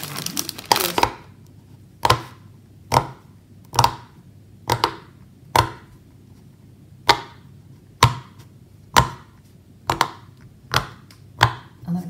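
Plastic bag crinkling in the first second. Then the bubbles of a square silicone pop-it fidget toy are pressed one at a time: a sharp pop roughly once a second, about a dozen in all.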